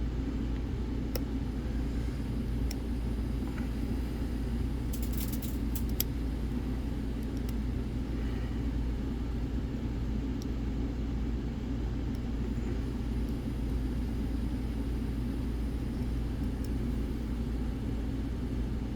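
Steady low background rumble, with a few faint small metallic clicks of lock picks working inside a padlock, a short cluster of them about five to six seconds in.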